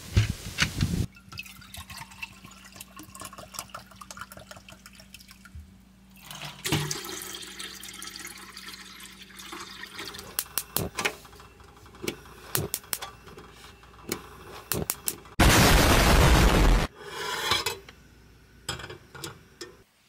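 Water poured from an enamel mug into a small camping pot on a camper van's gas stove, among clinks and clicks of mugs and cookware. Near the end comes a loud, even rushing noise lasting about a second and a half.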